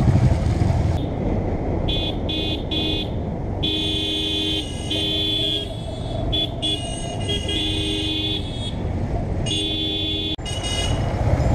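Motorcycle riding with steady engine and wind noise, and a horn honking repeatedly from about two seconds in: three quick beeps, then a series of longer honks, the last near the end.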